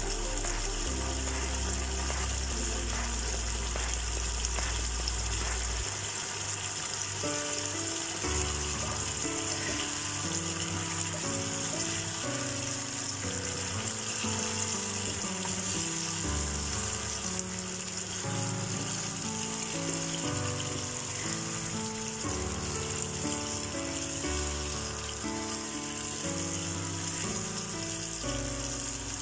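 Chicken drumsticks in spiced masala sizzling steadily in an uncovered pan as the liquid cooks down, under background music that moves in held notes.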